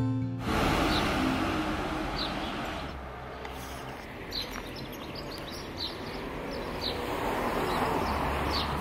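Outdoor ambience: a steady low rumble of background noise, with small birds chirping briefly about eight times.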